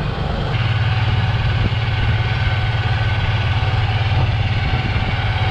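Engine of a side-by-side utility vehicle running steadily while driving across a field: a low, even drone that firms up about half a second in.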